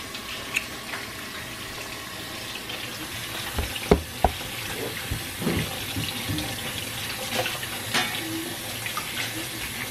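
Kitchen faucet running into the sink while hands are washed under the stream. Two sharp knocks stand out about four seconds in.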